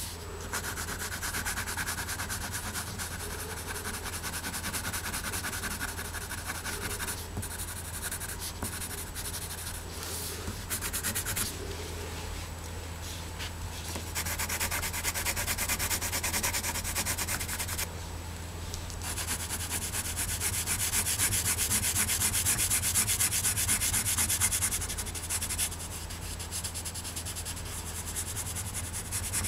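Pencil crayon rubbed quickly back and forth on paper, colouring in a drawing, in several runs of fast strokes with short pauses between them.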